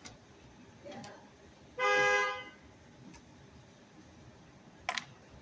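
A car horn gives one short, steady honk of under a second, about two seconds in. A sharp click follows near the end.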